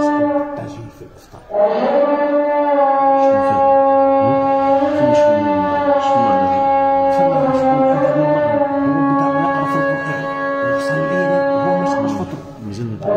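A muezzin's call to prayer (adhan): one long drawn-out, ornamented phrase sung on a held pitch, after a short breath pause about a second in, with another pause near the end.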